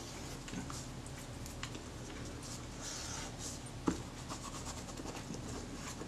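Faint scratching and rubbing as adhesive residue is scraped off a chromed Kodak Retina IIIS base plate, with small ticks and one sharper click about four seconds in.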